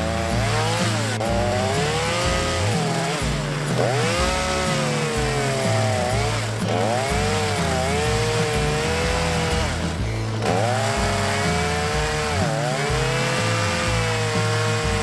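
Husqvarna 240 two-stroke chainsaw running at high revs while cutting into an upright log. Its pitch sags and recovers several times as the chain bites into the wood and is eased off.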